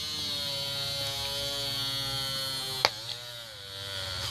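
Electric rotary tool spinning a toothpick mounted as a drill bit, its motor buzzing steadily as the tip is pressed into a plastic bottle. A sharp click comes about three seconds in, after which the motor's pitch and level sag briefly and recover.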